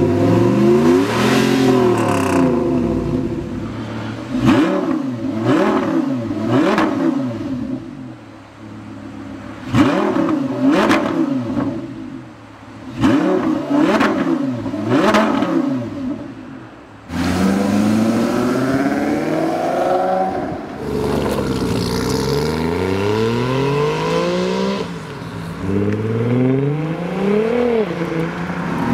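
Car engine revved in repeated quick blips, each rev climbing and dropping back. About two thirds of the way in, a different car's engine takes over, revving in longer, higher rising and falling sweeps.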